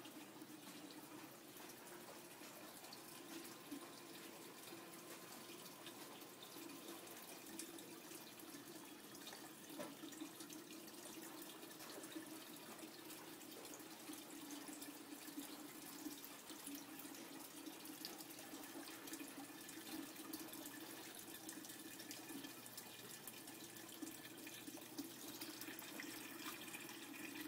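Small tiered ceramic garden fountain, water trickling and splashing steadily from pot to pot, faint, growing slightly louder near the end.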